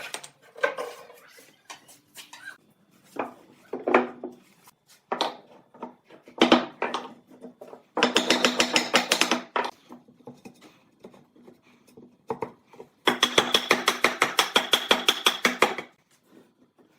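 Hand tools working wood. Scattered knocks and taps, then two runs of quick rubbing strokes at about eight a second, one around eight seconds in and a longer one from about thirteen seconds.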